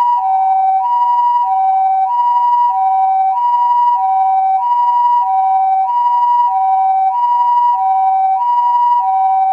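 Two-tone siren sound effect switching evenly between a high and a low note, each held about two-thirds of a second: the hi-lo "pee-po" pattern of a Japanese ambulance siren.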